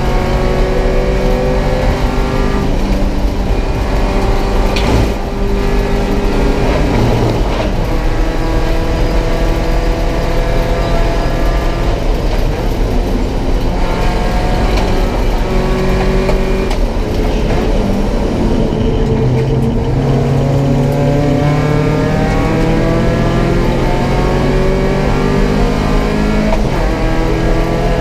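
Porsche 944 Cup race car's four-cylinder engine heard from inside the cockpit at racing speed. The revs climb and drop repeatedly through gear changes and braking, with a long climb in the last several seconds.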